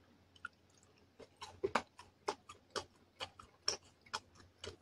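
Close-up chewing of a fried chicken nugget (McDonald's Spicy Chicken McNugget dipped in tartar sauce): a run of short, faint crunchy clicks, about two or three a second, starting about a second in.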